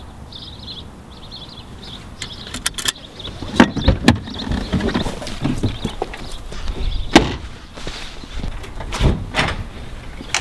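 A car door being opened and shut, a string of sharp clunks and knocks, the loudest about a third of the way in and again past the middle, over a low steady rumble.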